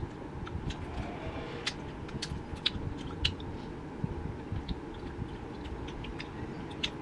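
Close-up chewing of soft, sticky Korean traditional taffy, with irregular wet clicks and smacks of the mouth as it pulls at the teeth.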